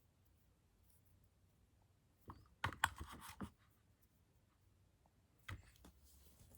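Handling noise of small objects: a quick cluster of clicks and light scrapes a couple of seconds in, then a single click near the end, otherwise quiet room tone.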